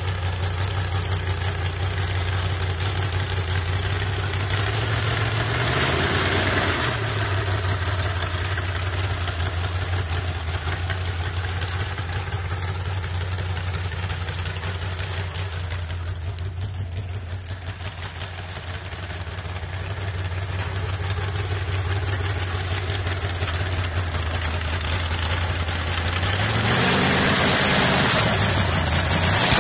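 388 small-block Chevrolet V8 with open upright exhaust stacks, running near idle in a garden-tractor rat rod as it drives slowly. It revs up briefly about six seconds in and again near the end.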